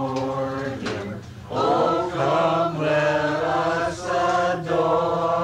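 A group of voices singing together, holding long notes in phrases of about a second each, with a short break about a second in.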